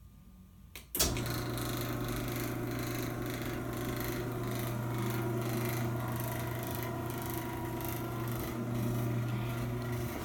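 Craftsman 1/2 hp belt-drive garage door opener closing the door: a click about a second in, then its motor and belt drive running steadily with a low hum, stopping near the end.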